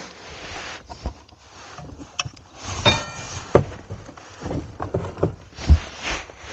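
Handling noise: rustling and rubbing, with a scattered handful of knocks and clicks, as a hand-held camera is moved and repositioned.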